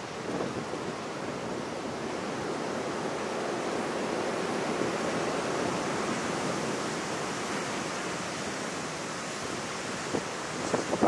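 Sea surf washing on a pebble beach: a steady rushing that swells in the middle and eases off again, with a few short sharp knocks near the end.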